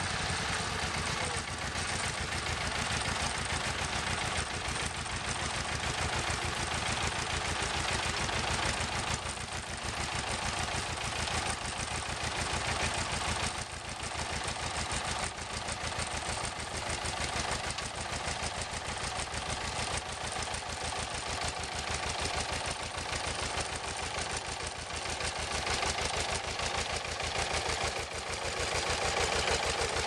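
Small vintage John Deere tractor engine running steadily under load while pulling a plough, a fast even chugging, growing louder near the end as the tractor comes close.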